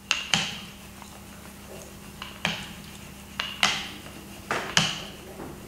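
Hand roller (brayer) being rolled back and forth over a paper print on a clay slab, giving sharp clicks and clinks, some in quick pairs, about seven in all.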